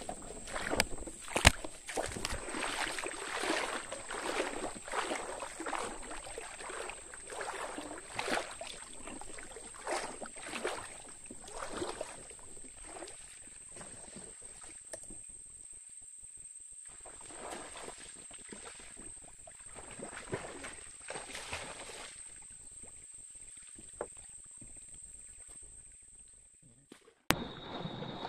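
Water sloshing and swishing as a person wades through knee-to-waist-deep swamp water, strokes coming about once a second and thinning out after the first half, over a steady high-pitched whine. The sound cuts off abruptly near the end.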